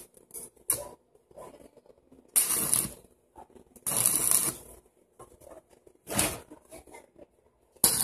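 Electric arc welder striking short welds on a steel frame: a crackling, sizzling hiss in a few separate bursts, each under a second, with quiet gaps between.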